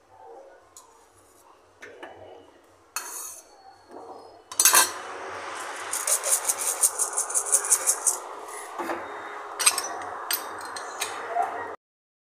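Light clinks and knocks of kitchen utensils, with one sharp knock. Then a plastic shaker is shaken over the cup for about two seconds in a quick, even rattle, followed by a few more clinks.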